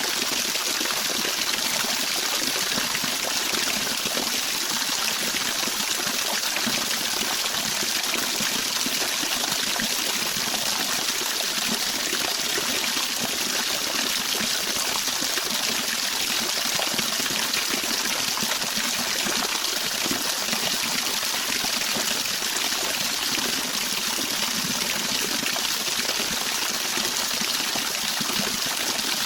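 Flowing river water, a steady even hiss of running water with no breaks or distinct splashes.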